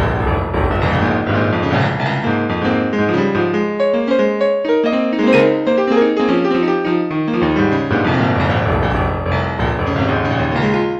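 Piano music: a slow melody of held notes moving step by step over sustained low bass notes.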